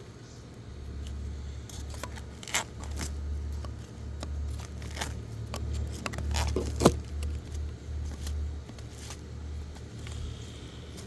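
Low rumble that comes and goes, with scattered clicks, scrapes and a jingle of keys, and one sharp knock about seven seconds in: handling and movement noise.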